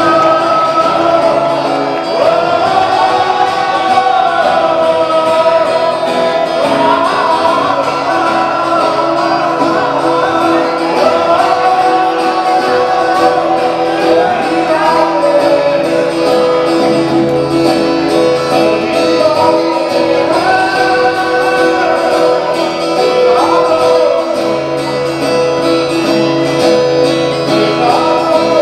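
A man singing a melody while playing an acoustic guitar.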